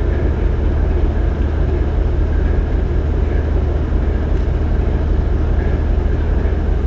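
A large engine running steadily close by, a deep, even rumble.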